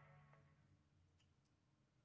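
Near silence: room tone, with a faint low hum fading out over the first second.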